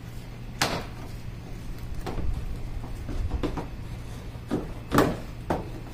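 Scattered sharp clicks and knocks of plastic car light housings being worked loose and unclipped by hand, about six in all, the loudest near the end, over a steady low hum.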